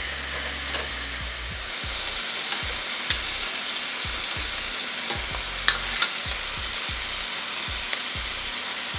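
Chicken pieces searing in hot oil in a stainless steel pan, a steady sizzle. Metal tongs click against the pan a few times as the pieces are turned.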